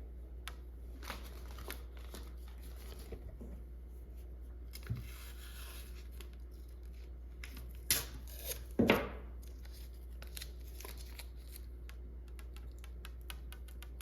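Small pieces of adhesive tape being torn and handled, with light clicks and rustling; two sharper rips a little past halfway are the loudest.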